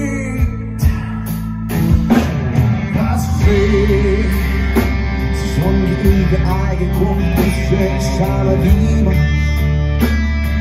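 Live rock band playing loudly: electric guitars, bass and drum kit, with a male singer's vocals.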